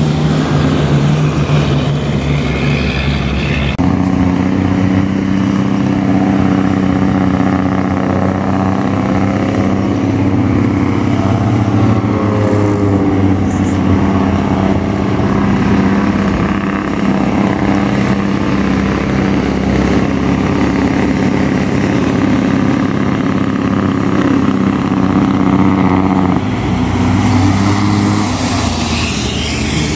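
Heavy diesel truck engines engine-braking (jake brake), a loud, steady low drone held at an even pitch. The sound changes abruptly about four seconds in and again near the end, as one truck gives way to another.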